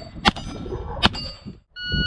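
Two pistol shots from a Glock 44 .22 rimfire, each followed by the ringing clang of a hit steel target. A short steady electronic beep starts near the end.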